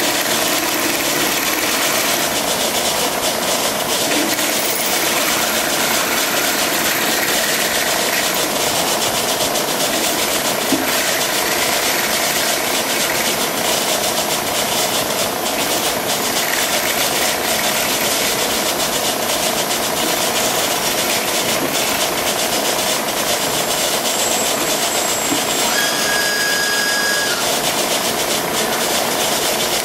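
Machine spindle running steadily as a drill bit of about 0.300 inch bores into a rusted-in steel action screw, a steady whir with cutting noise. A short high squeal comes near the end.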